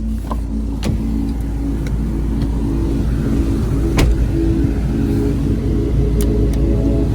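Car driving, heard from inside the cabin: a steady low engine and road rumble, with a few sharp clicks.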